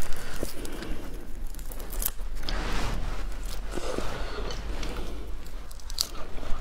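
Close-miked shell-on cooked shrimp, still frosty from the freezer, peeled by hand with a crackling, tearing sound, then bitten and chewed with small crunches. The small crackles and clicks come irregularly throughout.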